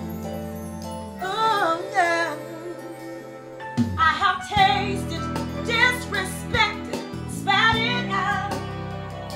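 Music: a song with a woman singing over sustained bass notes. The bass drops out about a second in and comes back just before four seconds in.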